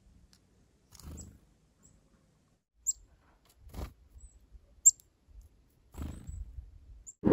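Black-capped chickadee giving short, high chirps scattered through, the two loudest about three and five seconds in, some dropping in pitch, with a few soft low rustles in between.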